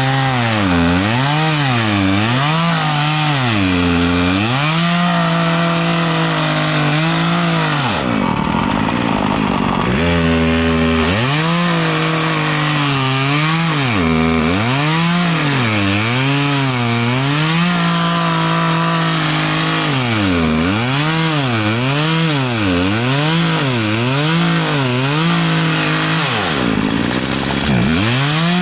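Gas chainsaw cutting through a pine log, its two-stroke engine pitch swinging up and down over and over as the chain loads in the wood and frees again. Twice, about a third of the way in and near the end, the engine drops to a low idle before being revved back into the cut.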